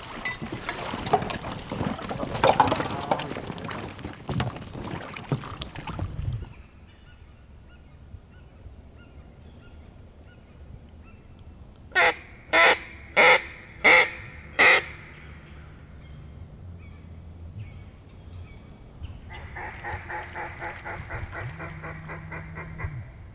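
Water sloshing and splashing for the first few seconds as a hunter wades in flooded timber. Later, a hand-blown duck call gives five loud quacks about two-thirds of a second apart, and near the end a quicker run of short quacking notes.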